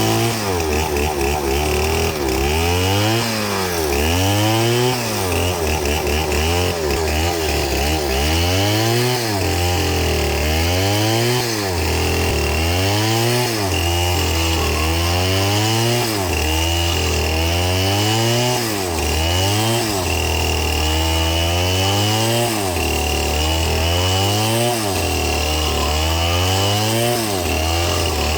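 Two-stroke chainsaw cutting into a palm trunk. Its engine note rises and falls over and over, roughly every one and a half to two seconds, as the cut loads the chain and lets it rev back up.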